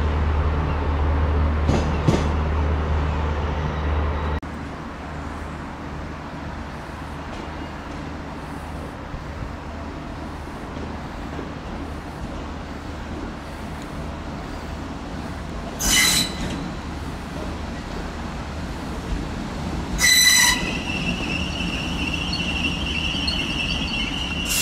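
Irish Rail trains at a station: a low engine rumble drops away about four seconds in, leaving a quieter steady rumble. Near the end come two short high-pitched toots, then a steady high-pitched squeal of train wheels.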